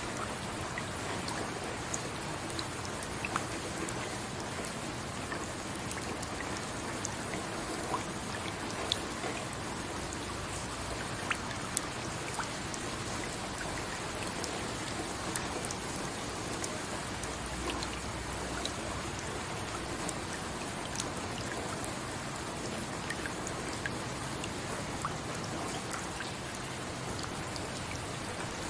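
Steady rain falling, with individual drops striking close by as scattered sharp ticks.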